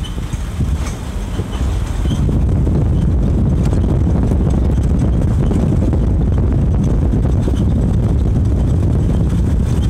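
Truck driving: a steady low rumble of engine and tyres on the road, which gets louder about two seconds in and then holds.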